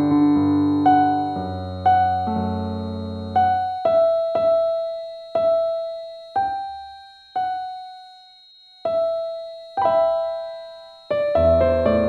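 Slow, calm solo piano music: full chords with bass at first, then single notes struck about once a second and left to ring away, with fuller chords returning near the end. A faint steady high tone runs underneath.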